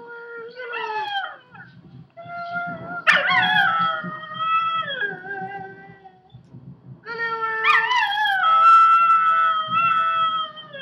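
Chihuahua howling: three drawn-out howls, a short one, then two long ones about three to four seconds each. Each howl ends by sliding down in pitch.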